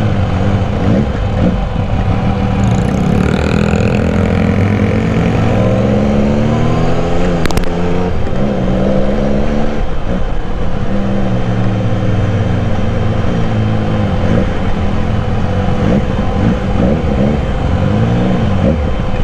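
On-board sound of a Benelli Café Racer 1130's three-cylinder engine running as the bike rides along, its note rising and falling with light throttle. There is a single sharp click about seven and a half seconds in.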